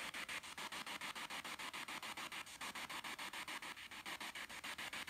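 Spirit box radio sweeping through stations: a steady hiss of static chopped into short bursts about nine or ten times a second, with no voices coming through.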